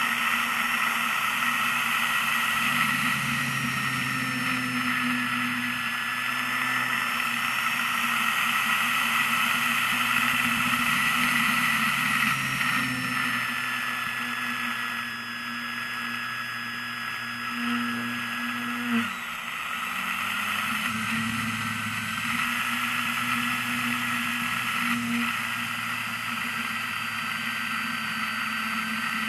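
A radio-controlled model airplane's motor and propeller running in flight, heard from on board: a steady whine that drifts slightly in pitch with the throttle. About nineteen seconds in, the pitch drops sharply for a moment before the motor picks up again.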